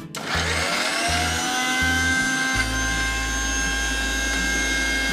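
Electric mixer grinder switched on and running at a steady speed, whining up in pitch as the motor spins up just after it starts, blending tomato, onion, ginger, chilli and garlic with vinegar and oil into a masala paste.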